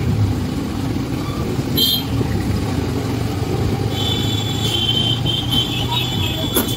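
Honda SP motorcycle's single-cylinder engine running at low speed in slow traffic, a steady low rumble with road noise. A brief high chirp comes about two seconds in, and a thin, high-pitched tone with short breaks sounds from about four seconds in.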